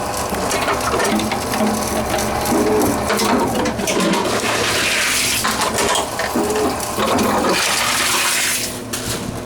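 Tomra Tx2 reverse vending machine running as plastic bottles are fed in: a steady rushing mechanical noise with scattered rattles and clicks.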